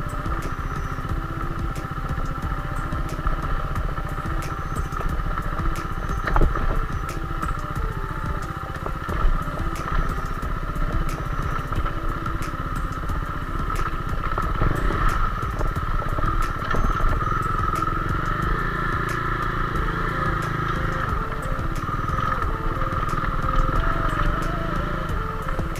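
KTM Duke's single-cylinder engine running steadily on a steep, rough dirt descent, with scattered clicks and knocks from the bumpy track.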